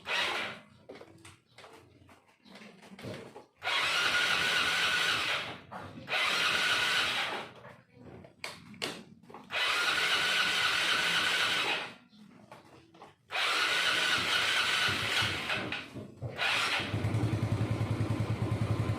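Yamaha Mio Sporty scooter's electric starter cranking in four long bursts with pauses between, the engine failing to catch, until it fires and keeps running near the end. A hard cold start, which the owner sets out to cure by cleaning the carburetor.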